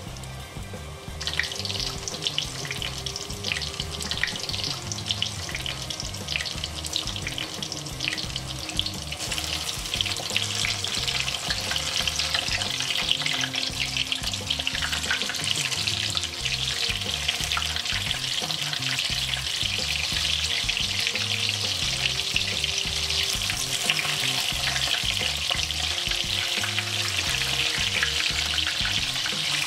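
Battered cauliflower florets (gobhi pakoras) deep-frying in a pan of hot oil: a dense, steady crackle and sizzle of bubbling oil that starts about a second in and grows louder.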